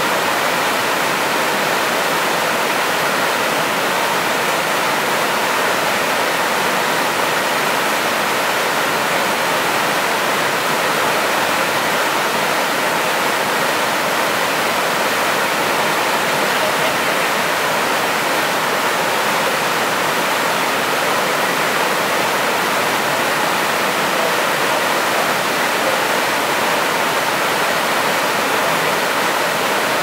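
Alpine mountain river cascading as white water over rocks in a narrow rock gorge: a steady, unchanging rush of water.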